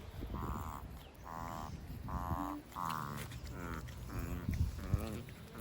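A Chihuahua whining in a string of about seven short, high-pitched cries, each wavering in pitch.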